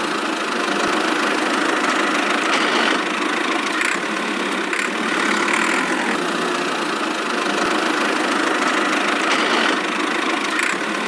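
A small engine or motor running steadily, with no deep rumble and no change in speed.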